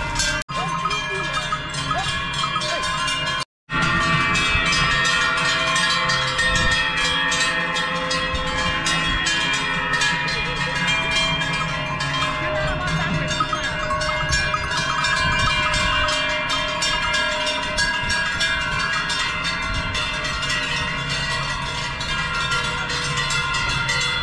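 Large cowbells on a herd of cows walking past, many bells clanging unevenly and overlapping. The sound breaks off for a moment about three and a half seconds in.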